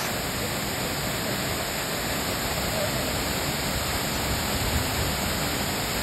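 Steady rushing of a tall waterfall pouring into a plunge pool, an even wash of white water with no break or change.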